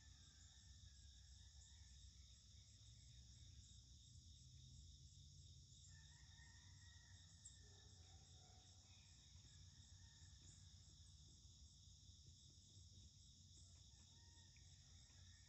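Faint, steady chorus of crickets and other insects outdoors, a continuous high shrill, with a few faint higher chirps coming and going over a low background rumble.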